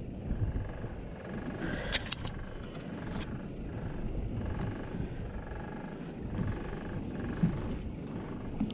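Steady low rumble aboard a small fishing boat at sea, with a few sharp knocks about two and three seconds in.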